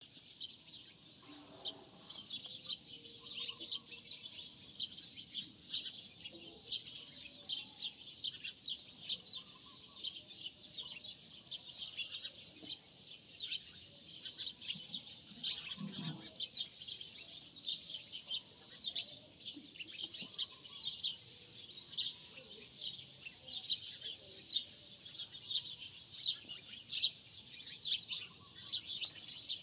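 Birds chirping continuously: a dense, irregular stream of short, high chirps, many overlapping.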